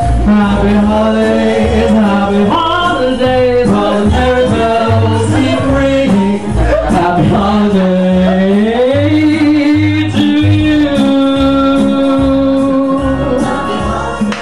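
A man singing a song into a microphone over backing music with a pulsing bass beat, his voice sliding between notes and finishing on a long held note near the end.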